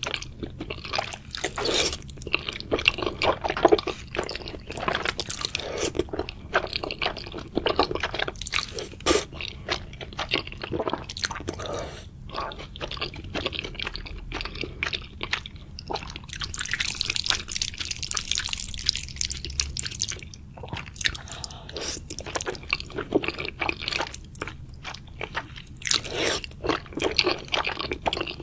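Close-miked eating: chewing, biting and crunching of food, with dense irregular crackles and wet mouth sounds. A few seconds of hissing noise come about two-thirds of the way through.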